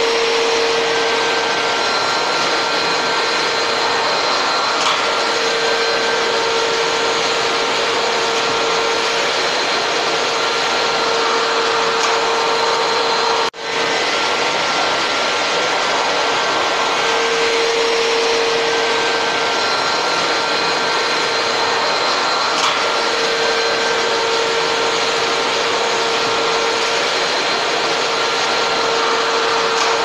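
Canister vacuum cleaner running steadily, a dense, even motor-and-airflow noise with a steady whine over it. The sound dips for an instant about halfway through, then carries on unchanged.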